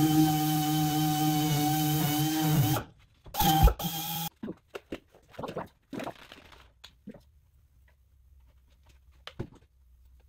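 Small handheld air tool running steadily against a metal door frame, shutting off about three seconds in and briefly running again a second later. Then scattered light rubbing and knocks of hand polishing.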